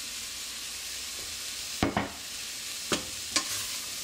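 Chopped leeks, carrots and mushrooms sizzling steadily in olive oil in a stainless steel saucepan while being stirred with a wooden spoon. Three sharp knocks come in the second half, the first, about two seconds in, the loudest.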